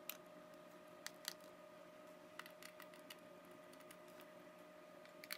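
Near silence with a few faint, sharp clicks and taps of hands handling a laptop's LCD panel and bezel, over a faint steady hum.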